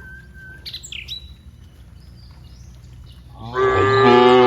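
A cow moos loudly, starting about three and a half seconds in after a quieter stretch. A short high chirp sounds about a second in.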